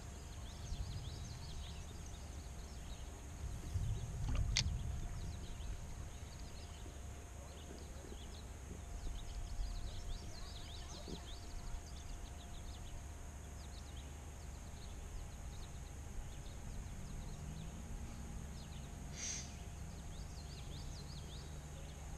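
Faint outdoor river ambience: a steady low rumble with scattered short, faint chirps, and a louder low rumble topped by a sharp click about four seconds in.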